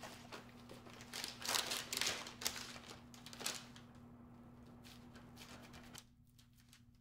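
Parchment paper rustling and crinkling as hands press and tuck a bacon-wrapped meatloaf on a baking tray, with several quick rustles in the first half, then quieter handling.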